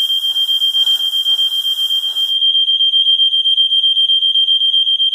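An alarm under test sounding a continuous high-pitched tone that flutters rapidly in loudness. A hiss-like noise runs under it and stops about two seconds in.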